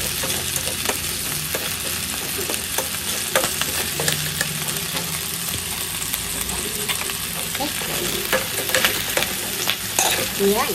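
Minced garlic sizzling as it is sautéed in a metal wok with boiled chicken feet, stirred with a metal spatula that scrapes and clicks against the pan now and then over the steady hiss.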